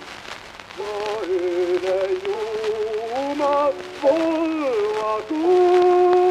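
A male voice singing an anthem in sustained phrases with vibrato, with short breaks between phrases, on a 1908 recording, over the steady hiss and crackle of the old record.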